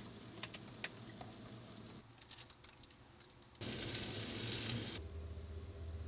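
Kitchen food-preparation sounds: light clicks and taps of a bowl and utensils, then a steady hiss for about a second and a half from a little past the middle, followed by a low steady hum.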